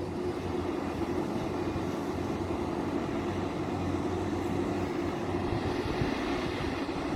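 Heavy excavation machinery's diesel engine running steadily with a constant low hum.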